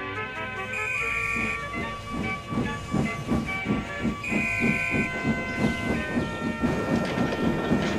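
Steam locomotive sound effect: the whistle blows twice, briefly, while the engine starts puffing in a steady chuff of about three beats a second that quickens slightly, with hissing steam.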